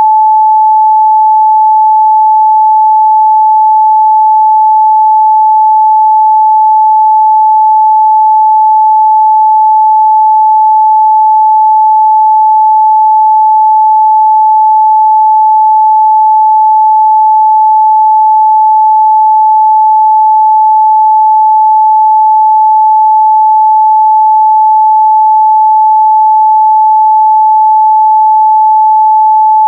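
Continuous 867 Hz sine-wave test tone, one pure steady pitch at constant loudness, used to check a speaker's or headphone's midrange response.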